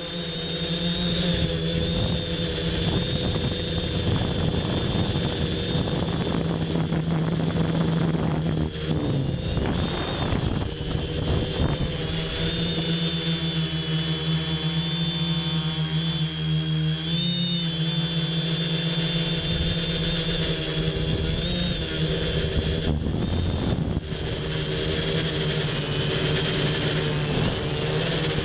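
Electrohub multirotor drone's electric motors and propellers spinning up and then buzzing steadily in flight, heard close from a camera mounted on the frame. The pitch wavers slightly as the throttle changes.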